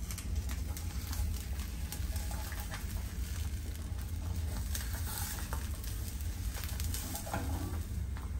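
Eggs frying in a non-stick pan, sizzling with many small pops, with occasional taps and scrapes of a spatula against the pan. A steady low hum runs underneath.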